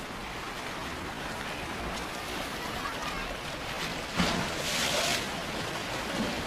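Outdoor seaside ambience: a steady wash of noise like surf, with faint voices. About four seconds in a sudden louder rush of noise lasts about a second.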